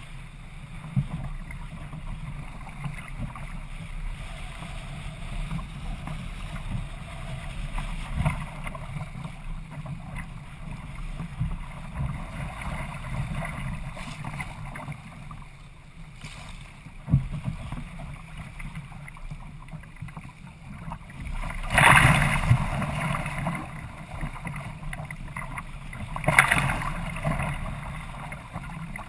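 Water rushing and splashing along the hull of a Hobie Adventure sailing kayak running fast through choppy water, with wind buffeting the microphone. Two loud splashes of waves or spray hit, about three quarters of the way through and again near the end.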